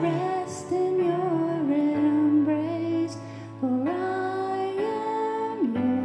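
A woman singing a slow worship song into a microphone over keyboard accompaniment, the melody moving in long held notes.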